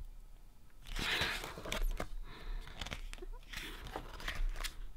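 Pages of a large photobook being handled and turned: paper swishing and rustling, loudest about a second in, with scattered light clicks and taps.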